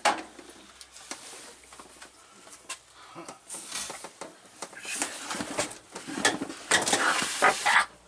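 Irregular clicks, knocks and scraping of hands working behind a washer-dryer, pushing a tube into place. The handling gets busier and louder from about halfway in.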